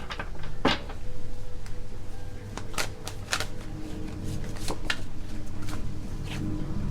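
A deck of tarot cards being shuffled by hand: irregular crisp card snaps and riffles, over soft background music.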